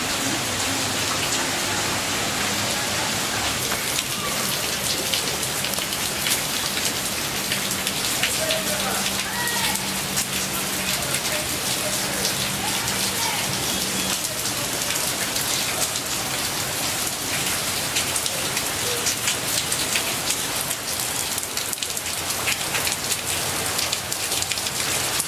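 Heavy rain pouring steadily onto a flooded street, a dense patter of drops hitting the standing water.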